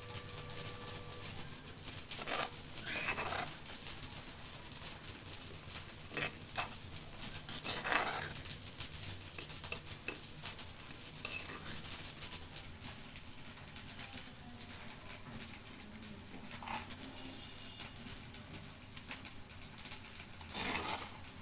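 Kitchen utensils and dishes clinking and rattling now and then in short clatters, with quiet handling between them.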